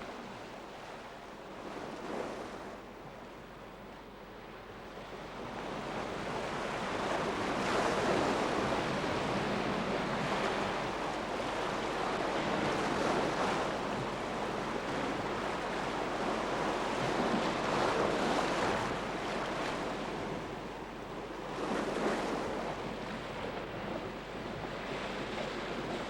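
Ocean surf, waves breaking and washing up, the noise swelling and easing every few seconds.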